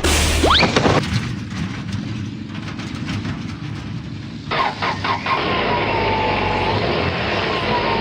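Cartoon vehicle sound effects. A quick rising whistle comes about half a second in, then a steady engine-like rumble. From about halfway a few clicks and a falling tone join in, and the tone repeats near the end.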